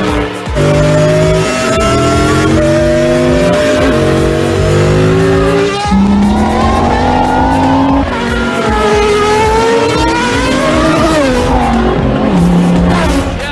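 Race car engines in a Cars racing video game, revving and shifting, with pitches stepping and gliding up and down, and tires squealing.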